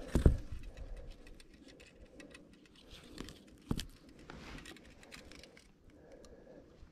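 Small clicks and knocks from handling a wooden ice-fishing tip-up as it is set over the hole, with a sharp knock just after the start and another a little past halfway.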